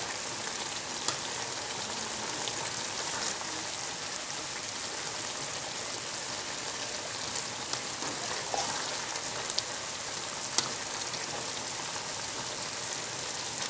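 Sayur lodeh, vegetables in coconut milk, cooking in a wok with a steady hiss, stirred with a spatula that gives a few sharp clicks against the pan.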